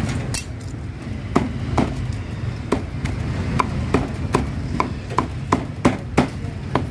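Cleaver chopping meat on a wooden chopping block: a steady run of sharp strokes, about two to three a second, starting about a second and a half in.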